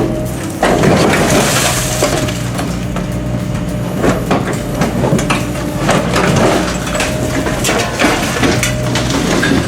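A 450 class diesel railcar being torn apart for scrap: a heavy machine crushes and breaks up the body, and metal and glass crunch and crack repeatedly over the steady hum of its diesel engine.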